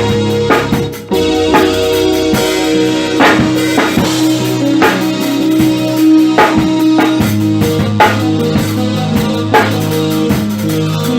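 Instrumental music: a drum kit keeps a steady beat over held low notes, with a short drop in loudness about a second in.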